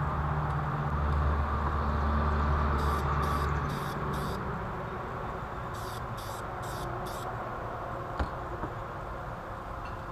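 Aerosol spray-paint can hissing in short bursts as a belt pulley is coated, two runs of four quick sprays about three and six seconds in. A low mechanical hum underneath fades out about four seconds in, and a single click comes near the end.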